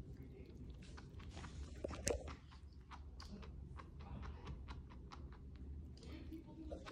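A chinchilla noisily chewing a piece of banana: a quick, uneven run of small clicks and smacks from its mouth, with one louder click about two seconds in.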